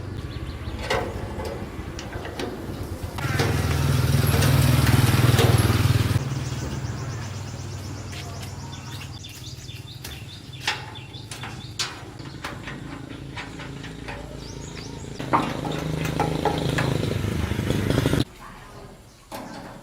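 Small engine running, revved up hard about three seconds in and again near the end, then stopping abruptly.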